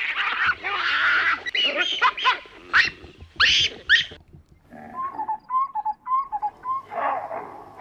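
Baboons calling, a dense run of screams and sharp rising shrieks that stops about four seconds in. A quieter series of short, repeated chirping notes follows, with another call near the end.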